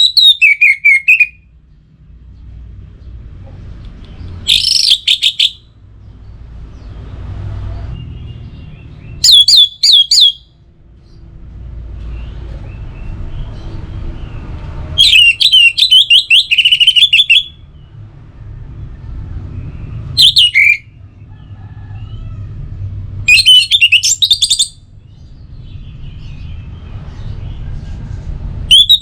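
Orange-headed thrush singing: short phrases of quick, varied whistled notes, about one every four to five seconds with pauses between. A low steady rumble runs underneath.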